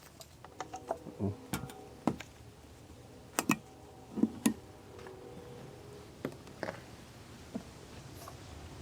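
Light scattered clicks and knocks of a plastic oil bottle and funnel being handled while engine oil is poured into the engine, with a few louder knocks around three and a half and four and a half seconds in.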